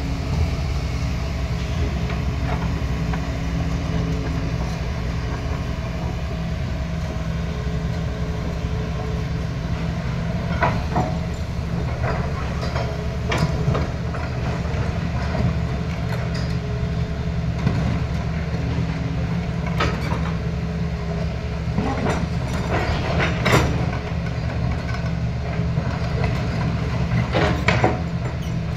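Diesel engines of tracked hydraulic excavators running steadily under load as they dig and shift rubble and rock, with several sharp knocks and clanks of rock against the steel bucket, mostly in the second half.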